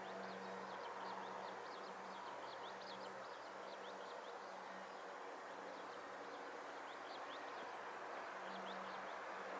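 Faint rural outdoor background: a steady hiss with many quick, high chirps scattered throughout, and a low hum that fades in and out.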